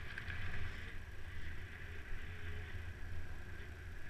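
Mountain bike rolling along a paved path: steady tyre rumble and wind noise on the ride camera's microphone.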